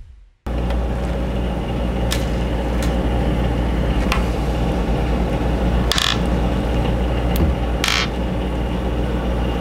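A steady low hum, with a few short sharp clicks and small scrapes as fine fishing line and small metal tackle such as a swivel are handled on a tabletop. The sound cuts out for about half a second at the very start.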